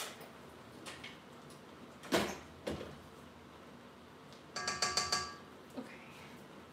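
Metal kitchen utensils handled: a couple of light knocks, then a short clinking with a bell-like metallic ring about halfway through.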